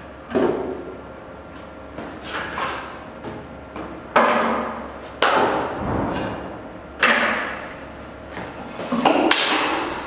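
Broken pieces of a veneered particleboard cabinet being set down and dropped onto a pile of its own parts: a string of wooden knocks and clatters, about seven or eight, each dying away quickly.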